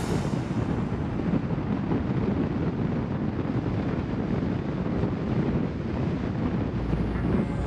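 Wind rushing over the microphone of a car driving at speed, with the low, steady rumble of tyres on the road.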